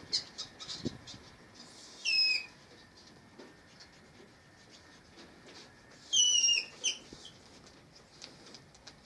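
Caged mink giving two shrill, wavering squeals about four seconds apart, each falling in pitch and lasting under half a second, with a shorter squeak soon after the second. Short clicks and rattles come in the first second.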